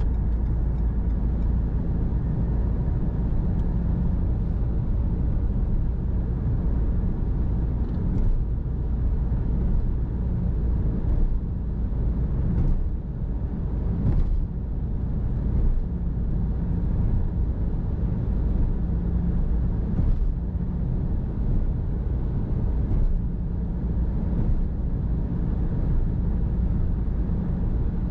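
Car driving at a steady pace: constant low engine and road rumble, with a few short knocks scattered through it.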